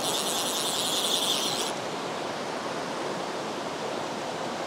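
Tellico River flowing steadily, with a high hissing buzz over it that stops abruptly about a second and a half in.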